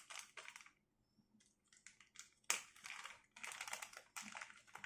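Plastic packaging crinkling and rustling in short irregular bursts as a small collar microphone is unpacked by hand, with one sharp click about two and a half seconds in.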